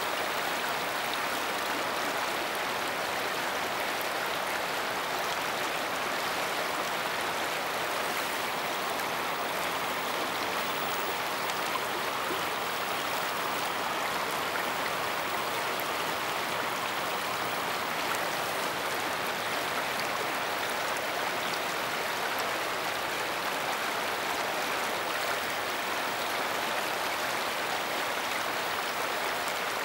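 Shallow river running over and around rocks: a steady rushing of water.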